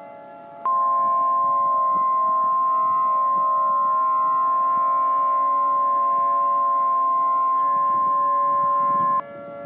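NOAA Weather Radio warning alarm tone (the 1050 Hz alert tone): one steady high tone that starts just under a second in, holds for about eight and a half seconds and cuts off suddenly near the end. It is the alert that comes before a spoken warning, here a tornado emergency. Fainter steady held tones sound beneath it.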